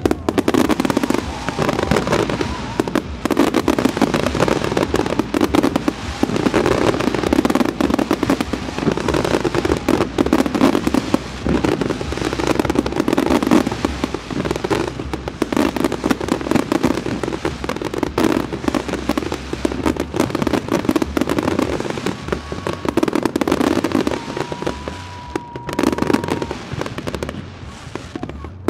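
Fireworks salute: a dense barrage of aerial shells bursting, a continuous run of bangs and crackles with no let-up.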